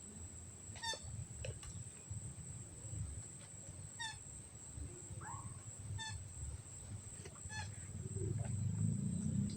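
Short, squeaky animal calls repeating every second or two over a steady, high-pitched insect drone. A louder low rumble builds near the end.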